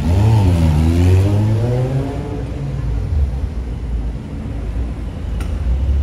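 A vehicle engine revving up, its pitch dipping and then climbing over about two seconds, followed by a steady low engine rumble from nearby traffic.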